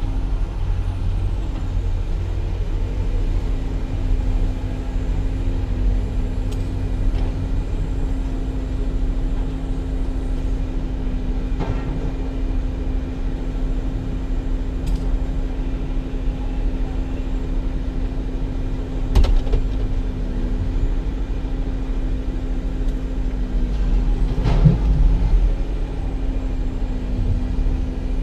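Motor vehicle running steadily under way: a steady hum over a low rumble, with a few short sharp knocks scattered through.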